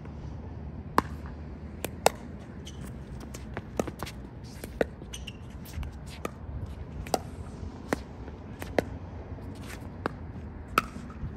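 Pickleball rally: sharp pocks of paddles striking the hollow plastic ball, about one a second, with a few louder hits. A steady low rumble underneath.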